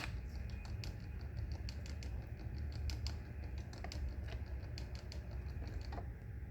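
Cuisinart Burr & Brew coffee maker just switched on and not yet grinding: light, irregular clicking, several ticks a second, over a low hum.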